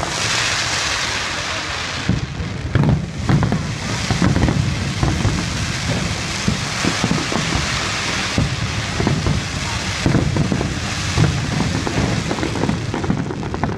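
Fireworks going off: a dense, continuous hiss and crackle, with many deep bangs of bursting shells underneath.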